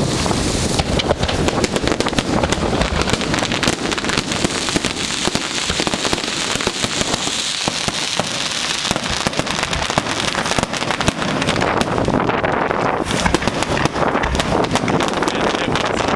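Fireworks going off in a continuous rapid barrage of bangs and crackles.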